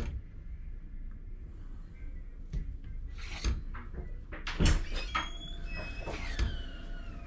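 Dough being divided on a kitchen counter: a few separate knocks and taps, and a brief falling squeak about five seconds in.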